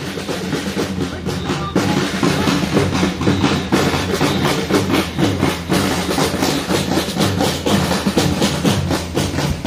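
Marching band of snare drums and a bass drum playing a steady street rhythm. It grows louder over the first two seconds, then holds.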